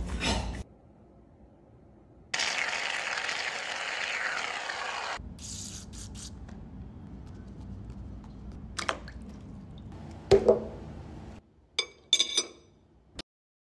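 A spray hissing for about three seconds, then a few sharp knocks and a metal spoon clinking against a ceramic plate near the end.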